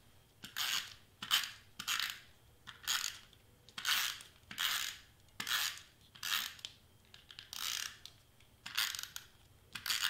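Handheld tape runner drawn across cardstock in short strokes, about fifteen quick scraping zips, roughly one and a half a second, laying adhesive down.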